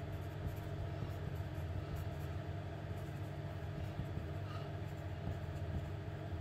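Pencil writing on a paper worksheet: faint, irregular scratching strokes over a steady low background hum.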